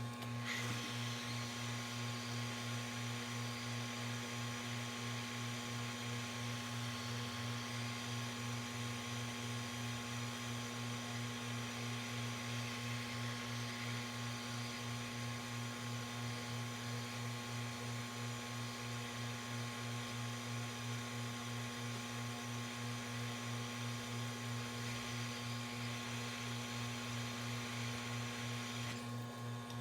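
Hot air rework station blowing a steady hiss of air; it comes on about half a second in and cuts off shortly before the end. Under it runs a steady low electrical hum.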